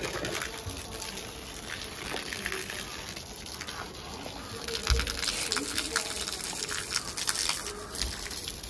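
Water running and gushing steadily, as from a hose pipe, with many small splashes. It grows louder about five seconds in, marked by a single low thump.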